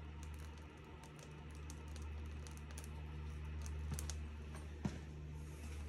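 Wood fire crackling inside a cast-iron wood stove: faint, irregular small pops and ticks, with two sharper cracks about four and five seconds in, over a steady low hum.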